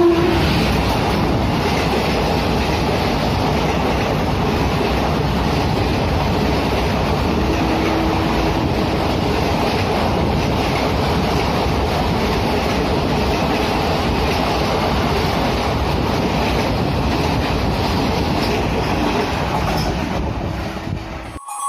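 Passenger coaches of an express train passing at speed: a steady, loud rumble and rattle of wheels on the rails, dying away shortly before the end as the last coach goes by.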